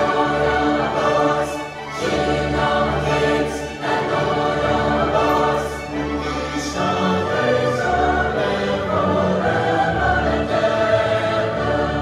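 Large mixed choir singing with a string orchestra, holding long chords that change every two seconds or so.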